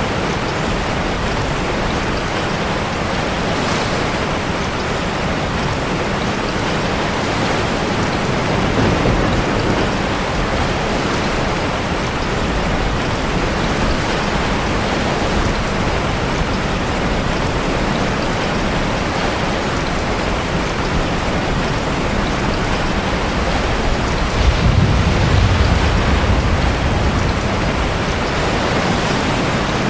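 Steady heavy rain together with surf surging in a sea cave, an even wash of water noise. A deep low rumble swells up about a third of the way in and again, louder, near the end.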